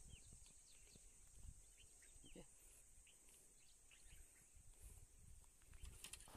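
Near silence: faint outdoor ambience with a steady high hiss and scattered small bird chirps. A brief scuffing on loose stones near the end.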